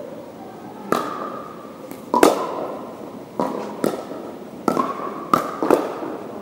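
Paddles striking a hard plastic pickleball in a fast rally: sharp, hollow pops at uneven intervals, about eight of them with two close pairs, each ringing briefly in a large gym.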